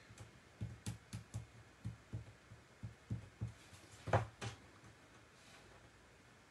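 Soft low thumps, about two or three a second, some with light clicks, that stop about four and a half seconds in: hands handling a glue tube and paper pieces on a desk.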